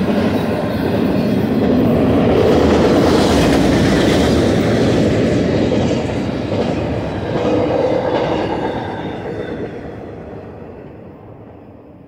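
Tail end of an intermodal freight train rolling past: a steady rumble and clatter of loaded container cars on the rails. It fades away over the last few seconds as the final car goes by.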